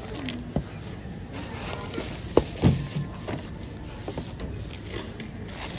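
A few light knocks and clatters over a faint low background, the two loudest close together about two and a half seconds in.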